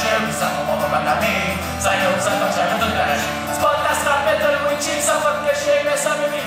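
Live acoustic guitar strummed in a steady rhythm, with male singing, played through a stage PA.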